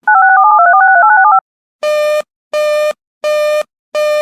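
Emergency-alert signalling tones: a quick string of touch-tone (DTMF) digits lasting just over a second, then a run of evenly spaced buzzy beeps, about one and a half a second, four of them heard.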